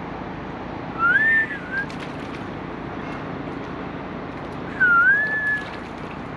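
A person whistling two short phrases about four seconds apart, each dipping and rising in pitch, over a steady background hiss.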